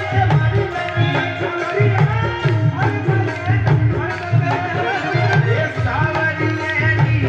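Holi bhajan music: a melody with wavering, gliding pitch over a steady, regular drum beat.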